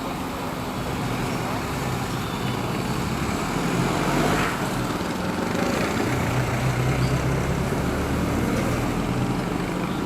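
Urban road traffic: vehicle engines running and passing, with a steady hum that swells about four seconds in and again around seven seconds.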